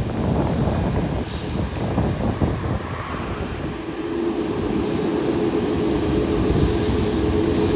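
Jet airliner engines running as an airliner passes: a low rumble with wind buffeting the microphone, and a steady engine tone that sets in about halfway and grows louder toward the end.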